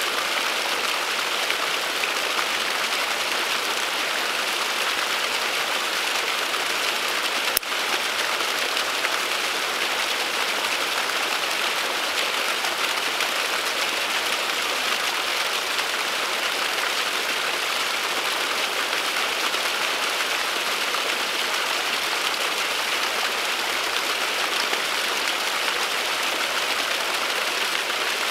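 Small waterfall trickling and spattering down a mossy rock face, a steady, even splashing hiss. A single sharp click about seven seconds in.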